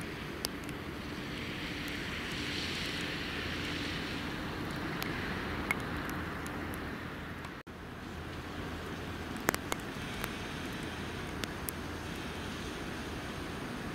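Steady low rumble and hiss of the railway surroundings, broken by a brief dropout just past halfway. After it, an EP2K DC electric locomotive approaches slowly, with a few sharp clicks in the second half.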